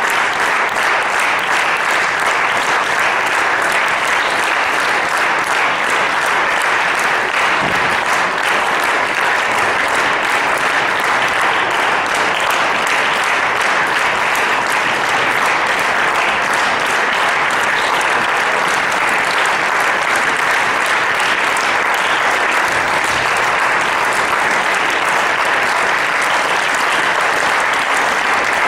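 Large concert audience applauding: dense, steady clapping throughout.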